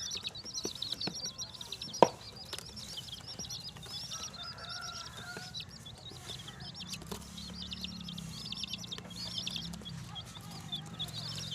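A group of baby chicks peeping: a rapid chorus of short, high-pitched cheeps that comes in waves, with one sharp click about two seconds in.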